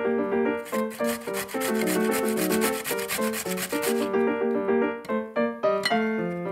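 Raw potato scraped on a stainless steel box grater in repeated grating strokes, which stop about four seconds in, over light background piano music.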